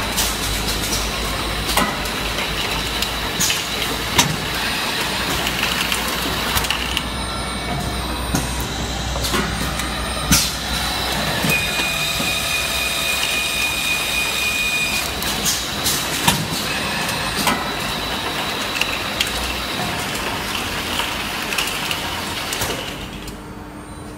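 Automatic piston filling and capping line for engine oil bottles running, with pneumatic filler heads. A steady machine din carries many short clicks and knocks and a thin high whine, and it gets quieter shortly before the end.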